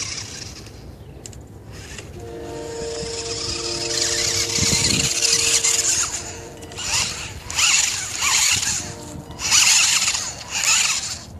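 Homemade radio-controlled 4x4 truck's small electric drive motors whining as it drives across grass; the whine starts about two seconds in and comes back later. Several short bursts of hiss in the second half are the loudest sounds.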